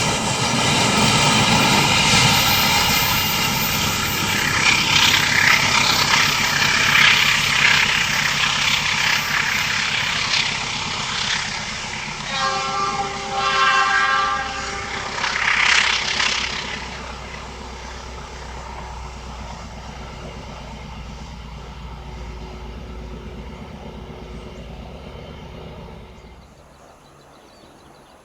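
A train passing on the line, its locomotive horn sounded in a steady chord for about two seconds near the middle. The train's loud running rumble then eases to a lower steady rumble that drops away a couple of seconds before the end.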